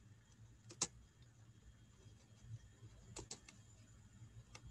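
Near silence with a few faint clicks at a computer: one about a second in, a quick run of three a little past three seconds, and one near the end.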